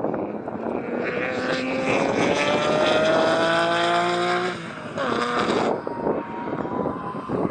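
Carbon-fibre BMW E36 M3 GTR race car accelerating hard, its engine revs climbing steadily for about four seconds. Near five seconds the sound dips briefly as it shifts up, then the revs climb again, fainter.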